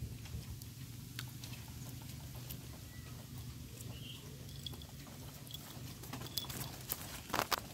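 A mongoose rummaging and sniffing through dry leaf litter and twigs: scattered light rustles and small clicks, with a short cluster of louder clicks near the end.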